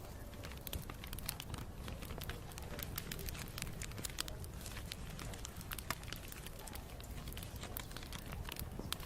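Wood fire crackling, with frequent sharp, irregular pops and snaps over a low, steady rumble.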